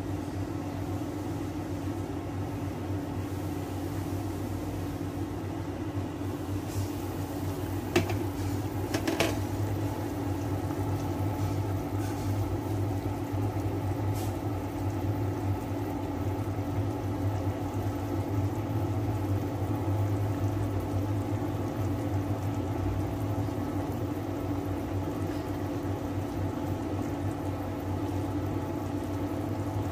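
Pot of braising spare ribs simmering on an electric cooktop, against the cooktop's steady hum. A few sharp clicks come about eight and nine seconds in as the glass lid is lifted off.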